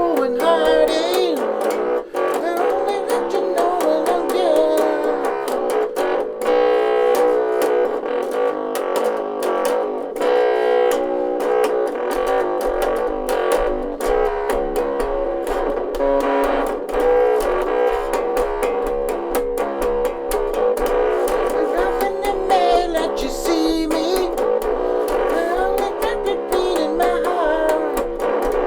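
Encore electric bass guitar played through a small battery-powered amp: a continuous rock riff with a thin, midrange tone and very little deep bass.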